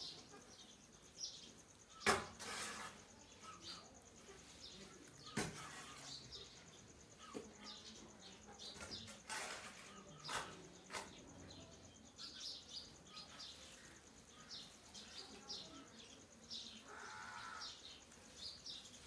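Peahens pecking and foraging in a bed of chopped greens: scattered sharp taps and rustles, the loudest about two seconds in, with frequent short bird chirps in the background.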